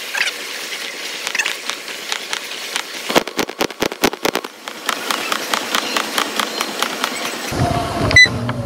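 Footfalls pounding a motorised gym treadmill belt in a quick, regular rhythm during an interval, with a short electronic beep from the treadmill console near the end as the speed is changed.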